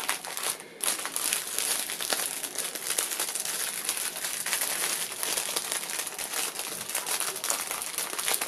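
Clear plastic packets of diamond painting drills crinkling as they are picked up and sorted by hand, a continuous crackle with a short lull just after the start.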